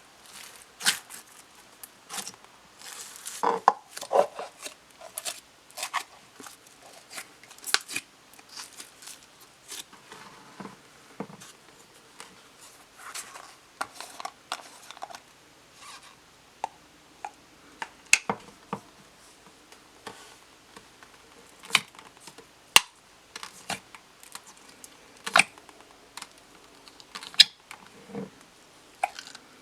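Slime being squished, poked and stretched by hand, making irregular sharp clicks, pops and crackles.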